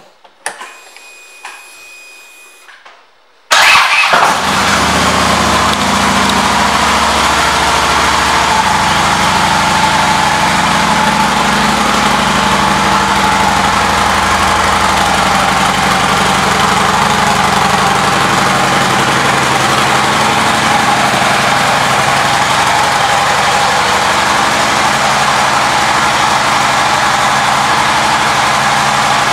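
2010 Harley-Davidson Police Electra Glide's Twin Cam V-twin engine cranking and catching about three and a half seconds in, then idling steadily and loud.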